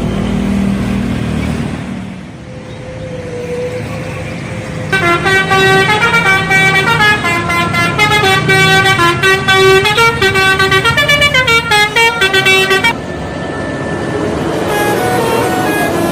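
Indonesian bus telolet horn, a multi-tone air horn, playing a quick melodic tune of rapidly changing notes for about eight seconds, starting about five seconds in. Fainter horn notes come back near the end.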